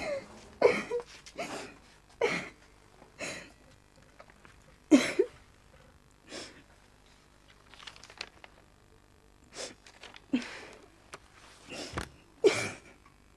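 A person sobbing: about a dozen short, catching cries and breaths, separated by pauses.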